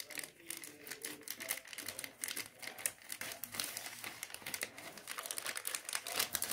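Plastic courier mailer bag crinkling and crackling as hands handle it, in a continuous run of irregular small crackles.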